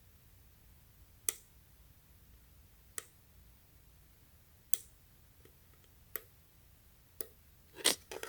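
Plastic push button on a DIY 18650 power bank being clicked, one sharp click about every one and a half seconds, trying to switch on its LED flashlight. Near the end come a few quicker clicks and handling noise.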